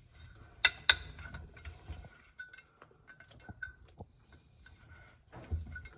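Light metallic clinks and taps of hand tools and clutch parts being handled, with two sharp clicks about a second in.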